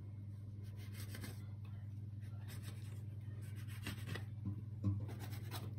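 Plastic dough scraper cutting through floured ciabatta dough and scraping against a wooden board. Faint, soft scrapes and rubs, with a couple of slightly louder strokes past the middle.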